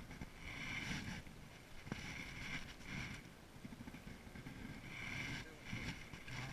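Penn spinning reel being cranked in short spurts, a whirring that comes and goes every second or so as the line is retrieved, over low wind and handling rumble.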